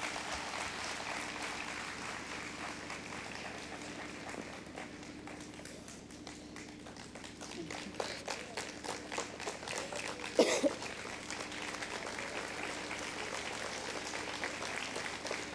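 Audience applauding: a steady patter of many hands clapping, with one short louder sound about ten seconds in.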